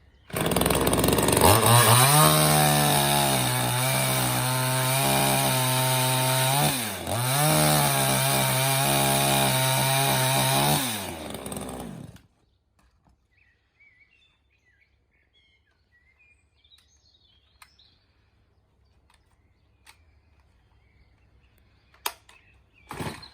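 Chainsaw engine revving up and running at high speed, its pitch dipping briefly about seven seconds in and then recovering. About eleven seconds in it winds down and stops, leaving near quiet.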